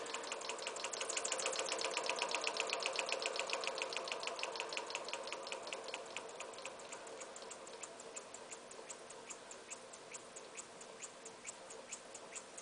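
Home-machined McCabe Runner single-acting model air engine running on compressed air, ticking with each stroke. The ticks start quick and close together, then slow steadily to a few a second and grow quieter as the engine is slowed down to see how slowly it will keep running.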